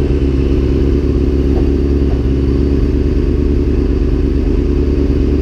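Sport motorcycle's engine idling steadily at a standstill, with no revving.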